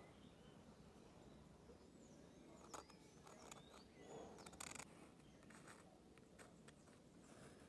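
Faint scratching of a metal dip pen nib drawing short strokes on textured paper, mostly in a cluster between about three and five seconds in. Birds chirp faintly in the background.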